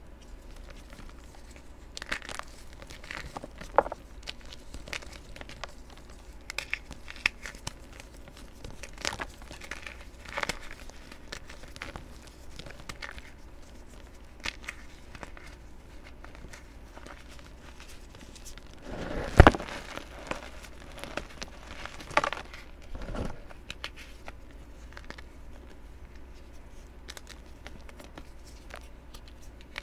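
Soft chalk chunks crushed and crumbled between bare hands: scattered crunches and fine crackles as pieces break down into powder, with the loudest crunch about two-thirds of the way through.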